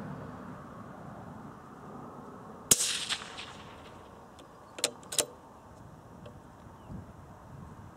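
A single shot from a moderated CZ .17 HMR rimfire bolt-action rifle, one sharp crack with a brief ringing tail. About two seconds later come two quick metallic clicks as the bolt is worked to chamber the next round.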